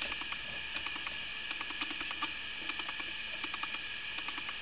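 Someone eating: small, irregular clicks and ticks over a steady background hiss.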